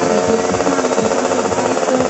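A Yamaha 350 two-stroke racing motorcycle engine running steadily, its note holding at an even pitch.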